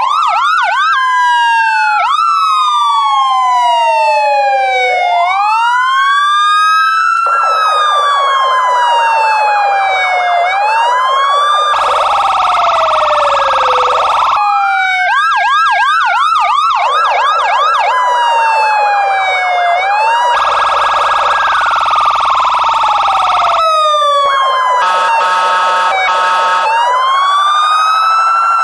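Police car siren sounding continuously. It cycles between a slow wail that rises and falls and a rapid yelp, with a few seconds of choppy pulsing tone near the end.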